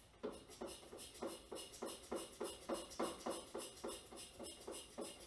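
Craftsman two-stage snowblower engine cranked by its starter on a cold start with the choke on, in an even rhythm of about three compression strokes a second, without catching.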